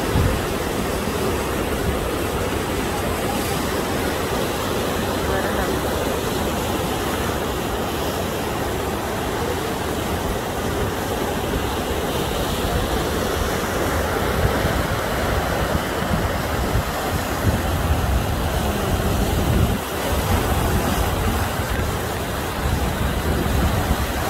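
Muddy floodwater rushing past in a swollen torrent: a steady, dense rush of water. Gusts of wind buffet the microphone more often in the second half.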